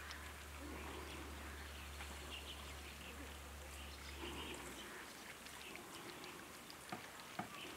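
Faint outdoor ambience with a few soft, short animal calls and some light ticks near the end.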